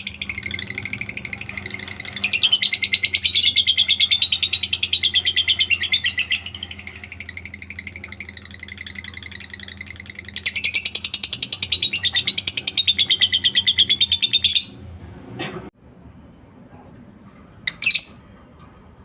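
A lovebird singing its long ngekek chatter: a very fast, unbroken run of high chattering notes that swells louder twice and stops about fifteen seconds in. A couple of short chirps come near the end.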